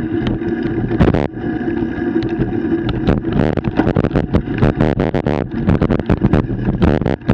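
Bicycle ridden over a bumpy dirt trail: rapid knocks and rattles of the bike and the camera mount jolting over the ground, over a steady buzzing tone.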